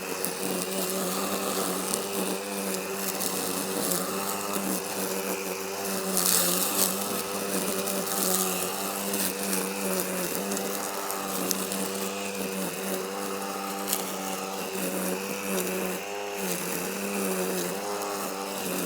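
A small motor running steadily with a buzzing hum.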